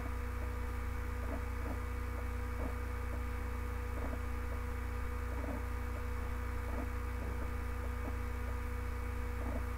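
Steady electrical mains hum, with a few faint short ticks scattered through it.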